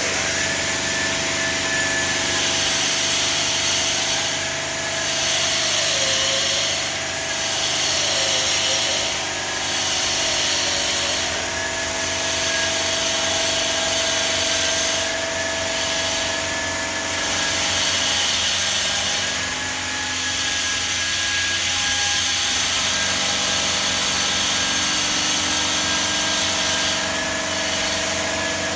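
Denver 5-axis CNC bridge saw cutting a curve in 20mm black granite: a steady high hiss of the blade in the stone over a constant motor whine. The hiss eases for a moment every few seconds.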